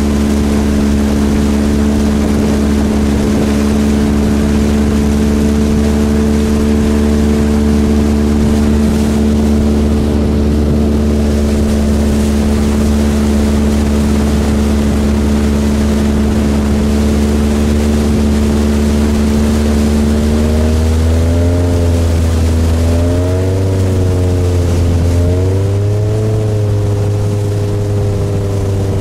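Engine of a Thai longtail speedboat running steadily under way, over a constant rushing noise. About two-thirds of the way through, the engine speed rises and dips a few times, then settles a little higher.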